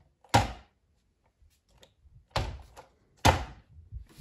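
A Tamiya DT-03 1/10 RC buggy thudding onto a tabletop as it is dropped and bounced on its wheels and shocks. There are four sharp thuds: one just after the start, then three in quick succession near the end, the last one faint.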